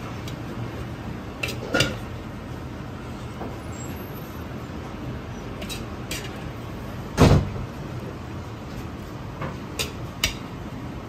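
Kitchen background noise: a steady low hum with a handful of short clanks and knocks. The loudest knock comes about seven seconds in.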